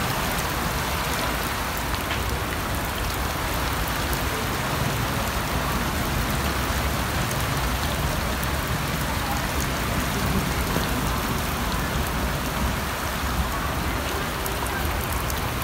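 Heavy rain falling steadily on concrete-block rooftops, an even, unbroken hiss.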